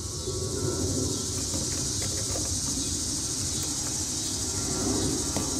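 Steady high-pitched drone of insects, cricket-like, over a low background hum, with a few faint small clicks.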